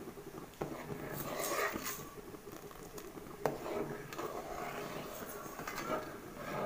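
A ladle stirring milk that has split into chhena and whey in an aluminium pot on a turned-down gas flame, with two sharp clinks of the ladle against the pot, about half a second in and near the middle.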